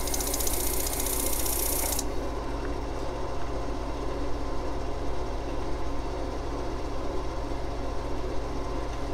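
Disc sander motor running with a steady hum. For the first two seconds a wooden pentagon segment is held against the sanding disc, giving a loud hiss that stops abruptly, as a sliver is taken off its edge to true the joint angle.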